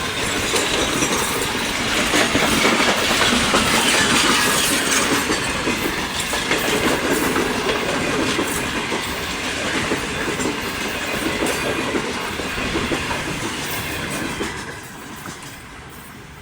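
A train passing close by, its wheels clattering over the rail joints; the noise falls away sharply about fifteen seconds in as the train moves off.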